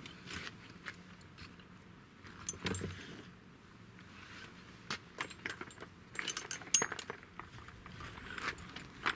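Scattered small clicks, clinks and rustles of things being handled, with a dull thump about two and a half seconds in. The clicks come thicker in the second half.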